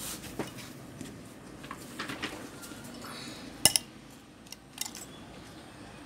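Light clicks and metallic clinks of a circuit board and a metal spring-clamp PCB holder being handled on a workbench, with one sharper click a little past halfway.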